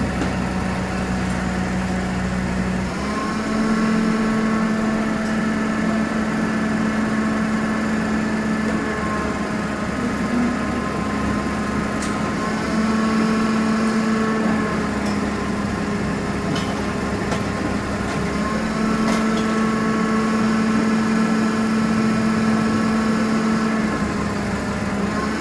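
Rear-loader garbage compactor truck's diesel engine idling, then stepping up to a faster steady run about three seconds in as the hydraulics work the bin lifter and compactor, with a few brief dips. A few faint knocks from the loading.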